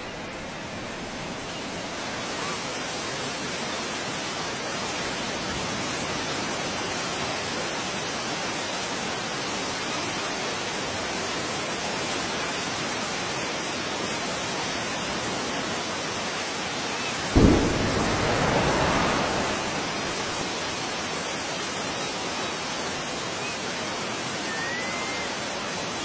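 Explosion rumble on the soundtrack of underwater nuclear blast footage: a steady rushing noise, broken about two-thirds of the way through by a sudden deep boom that rumbles on for two or three seconds before settling back.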